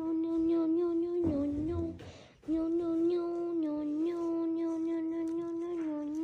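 A person's voice humming one long, nearly unchanging note with slight wavers in pitch. It breaks off briefly about two seconds in, then takes up the same note again.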